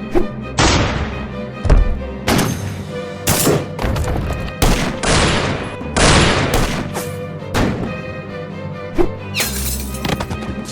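Background music with a dense run of added impact sound effects: a dozen or so sharp hits and swooshes in quick succession.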